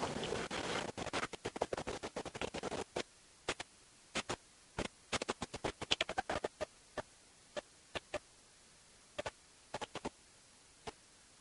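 Scratchy crackling from the camera being handled, thinning after about three seconds to scattered single sharp clicks.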